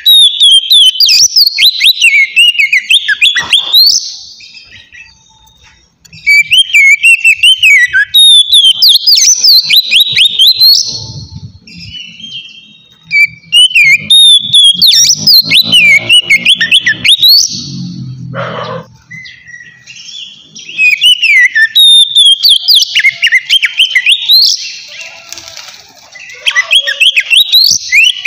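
An Oriental magpie-robin (kacer) singing loud, clear ngeplong song. It sings in fast, varied whistled phrases of three or four seconds each, with short pauses between them.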